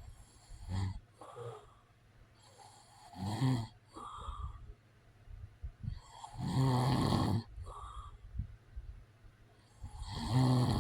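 A man snoring: a snore about every three and a half seconds, the longest and loudest one near the middle, with softer breaths between.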